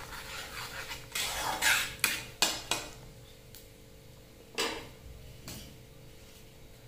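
A metal spatula scraping and clanking against a metal kadai while cumin seeds are stirred in hot mustard oil, in quick strokes for about three seconds. About four and a half seconds in come two knocks as the spatula is set down.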